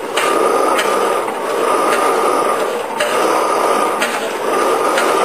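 1910 Hornsby 2 hp hot bulb engine running on its own after the hand start, a loud, regular beat repeating about once a second.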